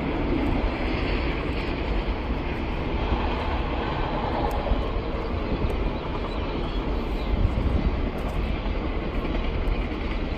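Steady low rumble with a hiss over it and a few faint small ticks.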